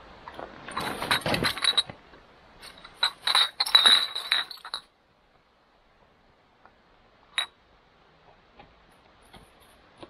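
Gear on a loaded hiking trolley rattling and clinking as it is shifted and unpacked, with glassy clinks, in two bursts over the first five seconds, then one sharp click about seven seconds in.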